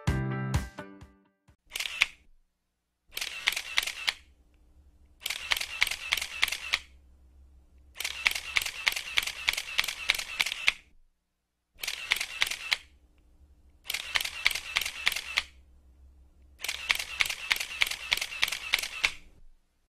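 Camera shutter sound effect firing in rapid bursts of continuous shooting, about seven bursts of quick clicks with short silent pauses between them. A low note fades out in the first second.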